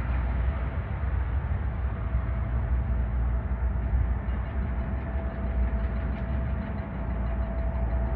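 Jet airliner's engines running, a steady low rumble with a faint steady whine that joins about three seconds in.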